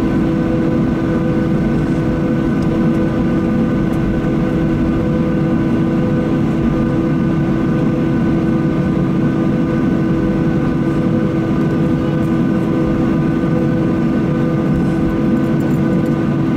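Inside the cabin of a Boeing 737-800 over the wing, its CFM56-7B jet engines running at taxi power: a steady rumble with several steady whining tones on top, unchanging throughout.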